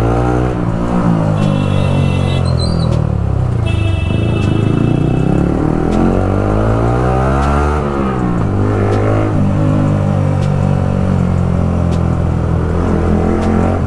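Yamaha R15 V3's 155 cc single-cylinder engine under way in slow traffic, its loud exhaust note rising and falling as the throttle is opened and closed, then holding steadier near the end. A horn sounds twice within the first five seconds.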